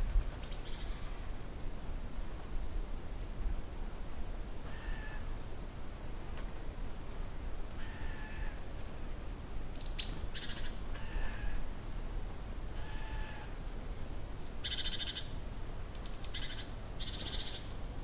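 Birds chirping in short, scattered calls, over a low steady rumble.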